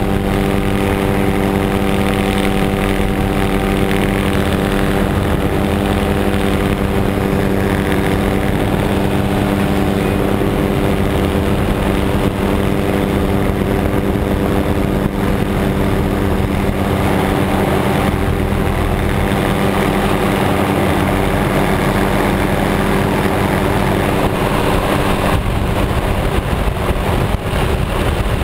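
Helicopter in flight: a steady drone of engine and rotors, with a fixed hum of several tones over a heavy rushing noise.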